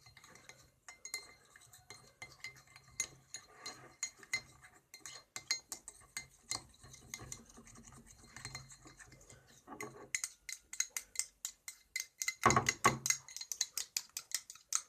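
A metal teaspoon stirring thick liquid soap quickly in a container, clinking against the sides in rapid clicks that get faster and louder about ten seconds in, with one heavier knock a little later.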